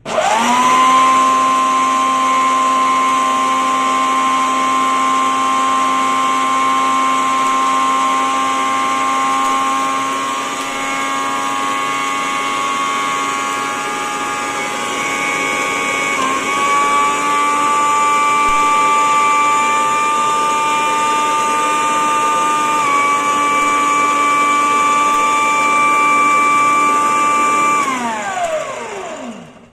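Electric kitchen mixer grinder switched on, its motor spinning up fast and running with a steady high whine, which steps up slightly in pitch about halfway through. Near the end it is switched off and winds down with a falling whine.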